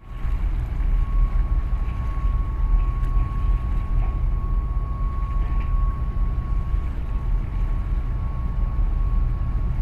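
Wind buffeting the microphone: a dense, unsteady low rumble, with a faint steady high tone running through it.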